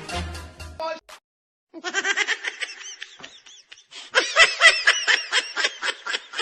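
Music cuts off just under a second in; after a short silence a person laughs hard in rapid repeated bursts, louder from about four seconds in.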